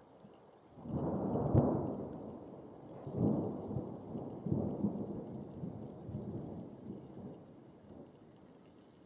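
Thunder rumbling: a sharp crack about one and a half seconds in, then two more rolling swells about three and four and a half seconds in, fading away slowly toward the end.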